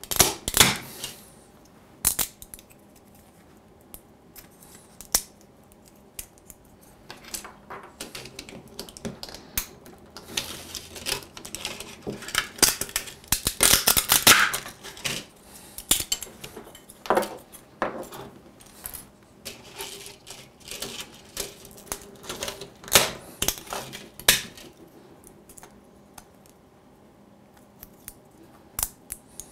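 3D-printed plastic parts being snapped and pried off their raft and supports by hand: irregular clicks, snaps and crackles, with small plastic pieces clicking down on a wooden desk. A dense run of crackling comes about twelve to fifteen seconds in.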